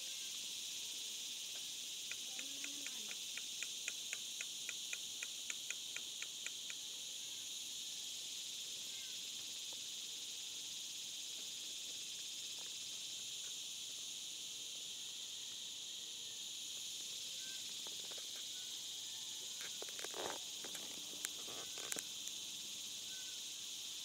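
Steady, high-pitched insect drone, crickets or similar, outdoors in the countryside. About two seconds in, a run of sharp ticks, about four a second, lasts some five seconds, and a few faint knocks come near the end.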